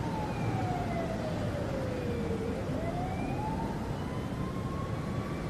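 A siren wailing slowly: its pitch falls for about two seconds, climbs back over the next two and a half, and begins falling again near the end, over a steady hiss.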